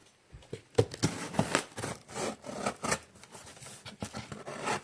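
Shipping package being opened by hand: an irregular run of quick, noisy strokes as the packaging is cut and pulled open.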